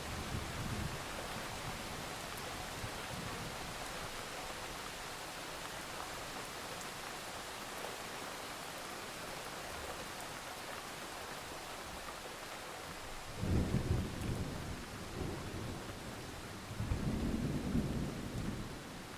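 Steady rain with two low rolls of thunder, the first about two-thirds of the way in and the second near the end.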